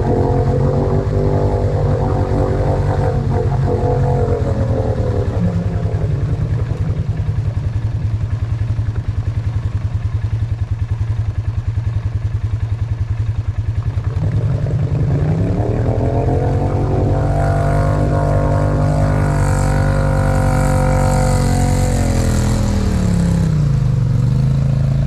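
ATV engine running under load while wading through deep muddy water. The throttle eases off about five seconds in, opens up again around fifteen seconds with the pitch rising, and drops back near the end, with water churning around the machine as it revs.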